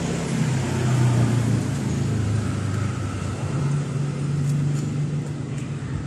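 An engine running with a steady low hum that steps up slightly in pitch about halfway through.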